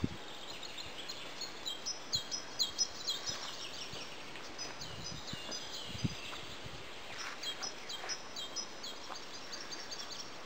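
Songbirds singing: high, quick chirping phrases repeated in two spells, over a steady hiss of outdoor background noise.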